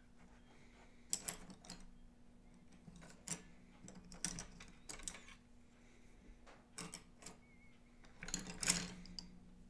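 Drawing tools and pencils being rummaged through and set down: scattered light clicks and clatters, about six of them, the loudest near the end, over a faint steady hum.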